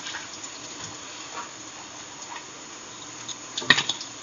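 Oil frying in a karahi, a steady low hiss. A quick cluster of clinks about three and a half seconds in, a utensil against a steel plate.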